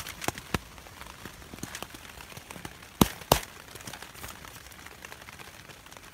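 Scattered crackles and taps as a stuffed sleeping bag is handled on a crinkly reflective foil sleeping pad, with two sharp knocks about three seconds in.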